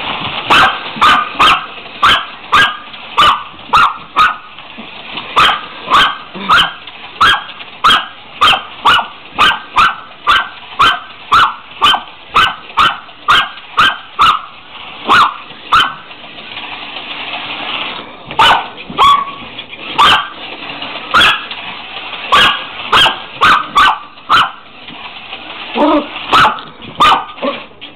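Dog barking over and over, about two barks a second, with a pause of a couple of seconds a little past halfway.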